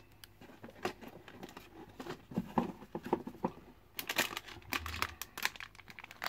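Hands rummaging in a cardboard box set, crinkling and rustling the packaging with irregular light knocks and scrapes as a cardboard insert is lifted out; the rustling is busiest about four seconds in.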